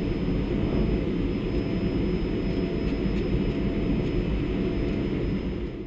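Steady cockpit noise of a Cessna Citation CJ1+ jet climbing after takeoff: a low rumble of airflow and its twin Williams FJ44 turbofan engines, with a faint steady high whine. It fades out near the end.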